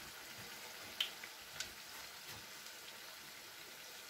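Samosas deep-frying in a pan of hot oil: a faint, steady sizzle, with a sharp click about a second in and a smaller one shortly after.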